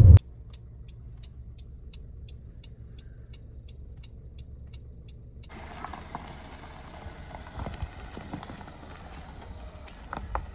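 Low, steady road rumble inside a moving car, with a faint ticking about three times a second. About five and a half seconds in it cuts to wind noise on the microphone outdoors, with a few soft bumps.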